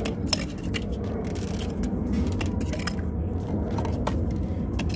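Scattered light clicks and taps of plastic ignition coil packs being handled and pushed back into the spark plug wells, over a steady low rumble.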